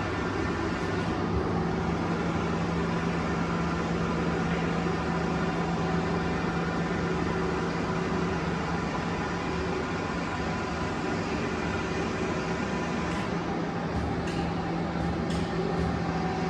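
Sculfort Maxicap Senior parallel lathe running, its spindle drive and gearbox giving a steady hum with a held low tone, and a few faint ticks near the end.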